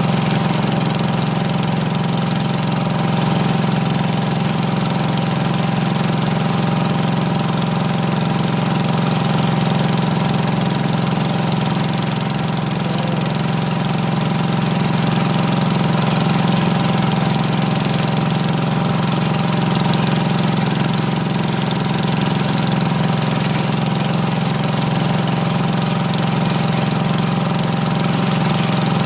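Economy Power King 1314 garden tractor's engine running at a steady speed while the tractor pushes snow with a front plow blade.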